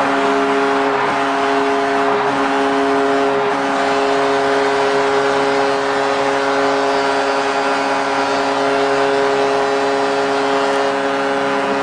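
Arena goal horn sounding one long, steady multi-tone blast over a cheering crowd, signalling a home-team goal.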